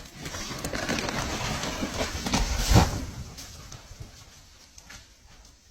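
A felled tree coming down: rising crackling and rushing noise ends in a heavy crash into the ground a little under three seconds in, then dies away.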